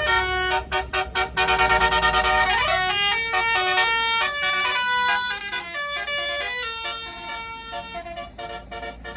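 A tour bus's telolet (basuri) musical horn playing a tune of changing notes, with a rising glide about three seconds in, over the bus's engine rumble. The horn grows fainter through the second half as the bus moves away.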